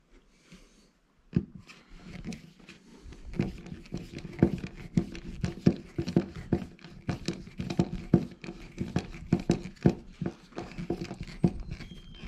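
Hand screwdriver driving a screw through a plastic thermostat wall plate into the wall: a fast, irregular run of short creaks and clicks as the screw is turned. It starts about a second and a half in and goes on until the screw is home.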